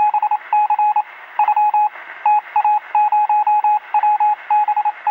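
Morse-code-style beeping: one steady tone keyed on and off in rapid runs of short and longer pulses, over a faint hiss, with a thin, narrow-band sound like a radio.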